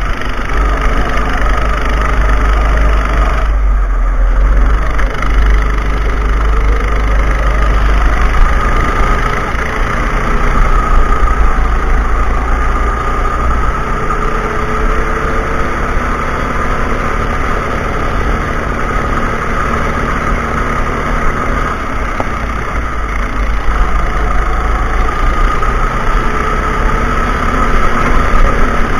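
Go-kart's small engine running at speed from onboard the kart, its note rising and falling with the throttle through the corners, over a heavy steady rumble of wind and vibration on the microphone.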